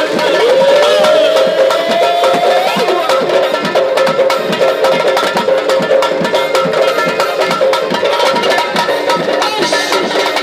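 Traditional folk music: hand drums keep a steady beat under a held melodic line that slides upward in pitch near the start.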